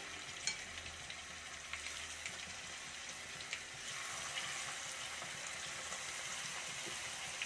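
Masala-coated fish pieces sizzling as they fry in hot coconut oil in a kadai, with a few small clicks as more pieces are dropped in. The sizzle gets a little louder about four seconds in as more pieces go into the oil.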